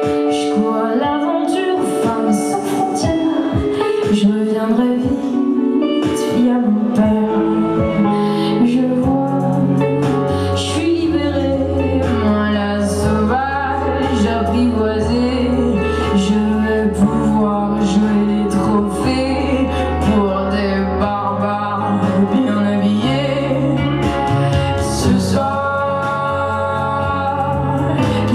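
A live band performing a song: a woman singing over electric guitar and keyboard, with a steady held bass line through the middle.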